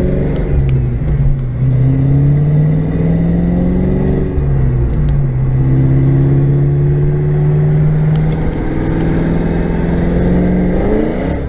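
Fox-body Ford Mustang's 5.0 (302) V8 at full throttle on a 100-shot of nitrous, pulling hard up through the gears. The pitch climbs, drops at upshifts about a second in and about four seconds in, then climbs in one long pull before dropping near the end. In fourth gear the rear tires spin.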